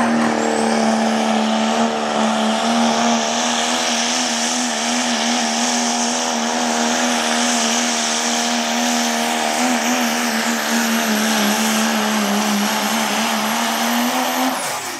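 Dodge Ram pickup's Cummins inline-six turbo-diesel at full throttle under load pulling a sled, its loud note held nearly steady with a slight waver and a thin high whistle above it. Near the end the engine drops off and the whistle stops as the pull ends.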